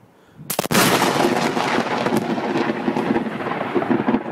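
Very close lightning strike: a sudden sharp crack of thunder about half a second in, followed by a loud, continuous roll of thunder.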